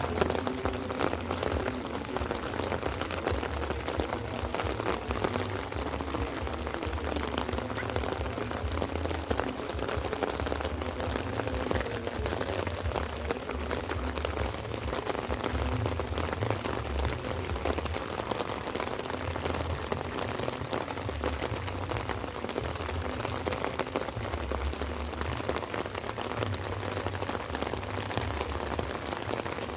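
Light rain falling steadily, a hiss dense with small drop ticks, with a low uneven rumble underneath.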